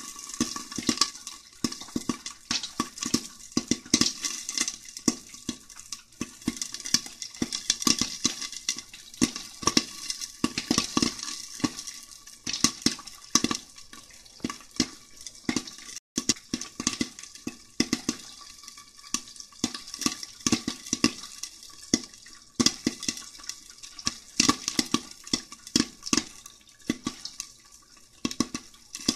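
Popcorn kernels popping in hot oil in a lidded pan on the stove: a fast, irregular stream of sharp pops, many every second.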